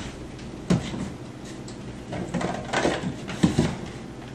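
A wooden kitchen cabinet being rummaged: a few knocks and clatters as the cabinet is handled and items on its shelf are moved, about a second in and again a couple of seconds later.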